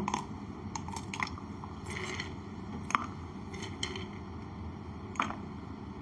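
Ice cubes dropped one by one into a drinking glass, clinking: a scatter of sharp clicks, the loudest about three seconds in and another about five seconds in.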